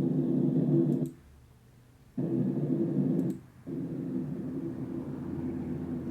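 Low, steady drone of a Hino bus running, heard from inside the cabin. It cuts out abruptly about a second in for roughly a second, then again briefly a little past three seconds.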